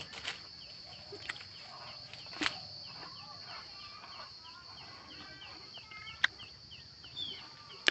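Outdoor ambience of birds calling, with many short repeated chirps and some longer curved calls, over a steady high-pitched drone. A few sharp clicks stand out, the loudest about two and a half seconds and six seconds in.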